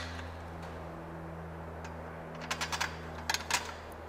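A few light metallic clicks as a bolt and washer are handled against the steel tubing of the frame, coming in two short clusters from about two and a half seconds in, over a steady low hum.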